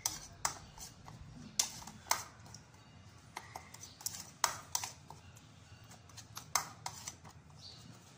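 Metal spoon stirring a thin liquid dressing in a ceramic bowl, clinking lightly and irregularly against the bowl's sides and bottom, with a few louder knocks.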